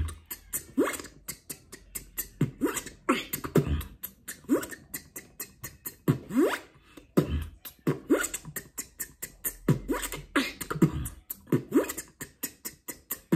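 Beatboxer performing a beat built on the zipper sound: quick upward-sweeping zips, one or two a second, with fast mouth clicks and percussive hits between them.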